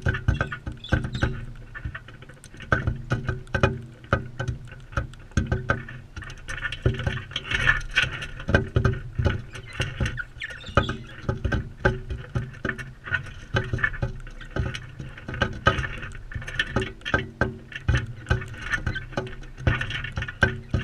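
Crimson rosellas feeding close to the camera: rapid, irregular tapping and crunching of beaks pecking and cracking seed, with some soft chatter.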